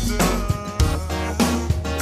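Instrumental music with plucked strings and drums keeping a steady beat.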